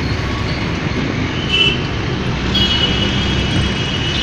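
Steady engine rumble and road noise heard from inside a moving road vehicle in city traffic. A short high-pitched tone sounds about a second and a half in, and a thin high whine sets in just past halfway and holds.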